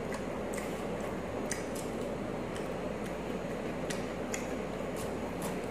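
A person eating close to the microphone: chewing with scattered short, crisp clicks and crunches, over a steady background hiss.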